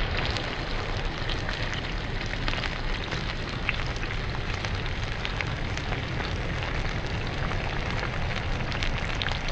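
Bream fillets sizzling in oil in a frying pan: a steady crackling hiss with many small spits and pops, over a low steady rumble.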